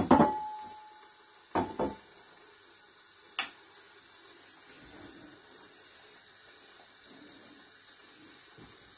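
Crockery clattering: a bowl is set down hard, and a short ringing tone follows. Two quick knocks come about a second and a half later, then a sharp click. After that only a faint steady hiss is left.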